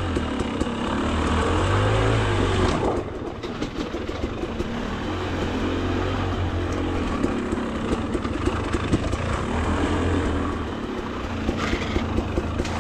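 Dirt bike engine running under a rider's throttle, its revs rising and falling, with the throttle easing off about three seconds in. Scattered knocks are heard along the way.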